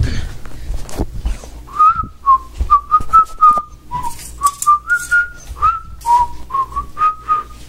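A person whistling a quick string of short notes for about six seconds, calling for a dog. A few handling knocks come before the whistling starts.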